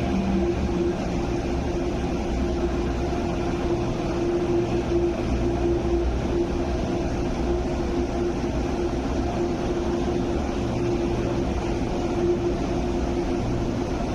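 Steady low rumble and hum of a station platform's background machinery, with one constant mid-pitched tone and no rise or fall.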